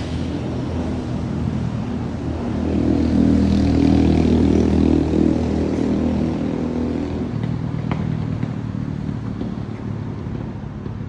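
A motor vehicle's engine passing by, growing louder for a few seconds and then fading away.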